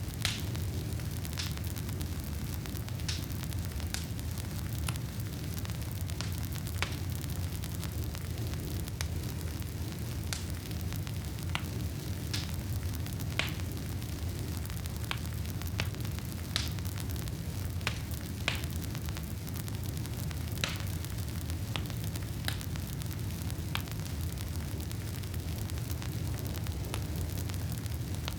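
Wood campfire burning: a steady low roar and hiss of the flames, with sharp crackles and pops from the burning wood scattered irregularly, about one or two every second.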